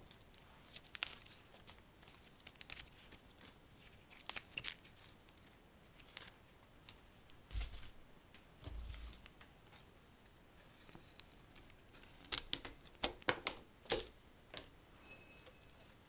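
Fresh flower stems being trimmed and handled: scattered sharp snips and crackles of stems and leaves, with a quick run of them near the end. Two dull low thumps come a little before the middle.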